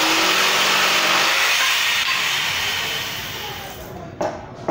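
Electric jigsaw cutting through a wooden board, its blade chattering through the wood loudly and steadily, then fading away as the cut finishes. Two sharp knocks near the end.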